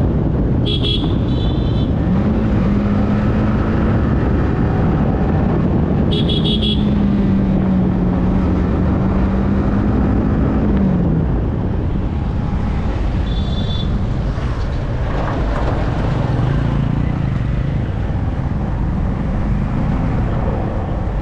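Yamaha R15M motorcycle riding in traffic: the engine holds a steady pitch under wind rumble, then eases off about eleven seconds in. Short horn beeps sound three times, about a second, six seconds and thirteen seconds in.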